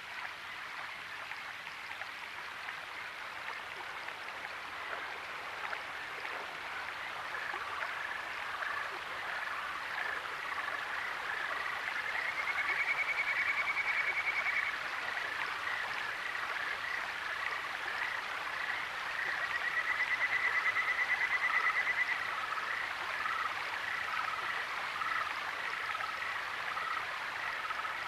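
A chorus of frogs calling over a steady background rush of water. The frogs give many short repeated calls, and two fast trills of about two seconds each, a little before and after the middle, stand out as the loudest sounds.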